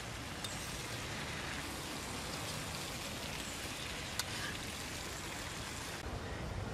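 Leafy greens sizzling as they stir-fry in a wok, with the metal spatula clicking against the pan twice.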